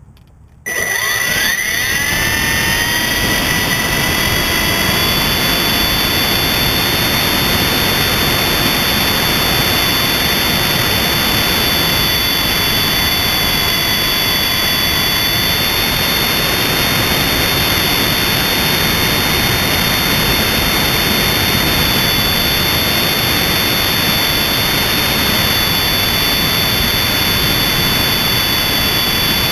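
MJX RC helicopter's electric motors and rotor spooling up about half a second in, a rising whine that settles into a steady high whine over loud rotor noise, heard from the camera mounted on the helicopter.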